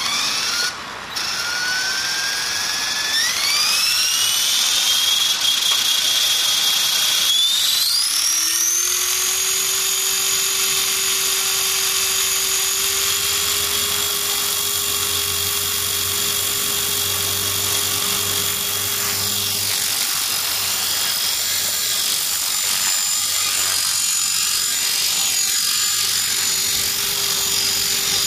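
Align T-Rex 450 electric RC helicopter spooling up: the 430L brushless motor's whine rises in pitch in two steps over the first eight seconds, then holds steady along with a lower hum from the spinning rotor head.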